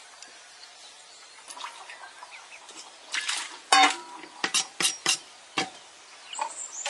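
A kitchen knife and wooden chopping board knocking against an upturned stainless-steel bowl as they are set down on it. A loud knock about halfway through rings briefly like metal, then four sharper taps follow over the next two seconds.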